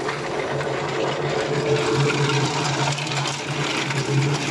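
Kadıoğlu CKS 80D variable-speed walnut hulling machine running steadily: its motor hums while green walnuts churn in the perforated drum.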